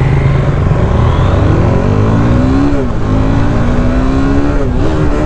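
KTM RC390's single-cylinder engine accelerating through the gears: its pitch climbs, drops sharply with an upshift about three seconds in, climbs again and dips once more near the end. A steady low wind rumble runs underneath.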